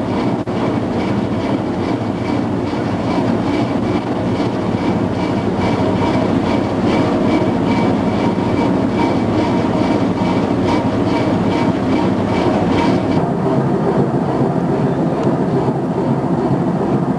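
Steady, loud mechanical rumble of a boat's engine, heard from on board, with faint steady tones and a faint even pulsing over it. The deepest part of the rumble drops out about 13 seconds in.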